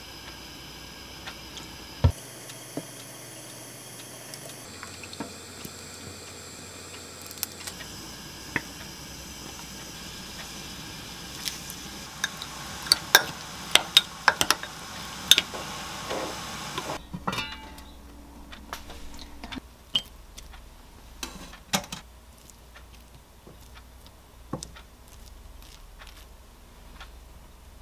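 Liquid seasoning poured from a bottle into a small glass cup, then a metal spoon stirring a sauce in the glass: a quick run of clinks against the glass. Later, a few scattered clicks of metal tongs on a plate.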